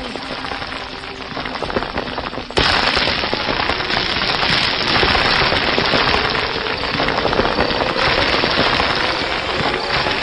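Dense crackling, hissing noise that jumps suddenly louder about two and a half seconds in and stays loud, with a faint rising tone underneath.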